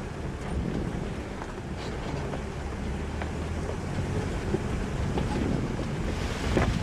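Jeep driving along a dirt trail: a steady low engine and road rumble with wind noise on the microphone and a few light clicks.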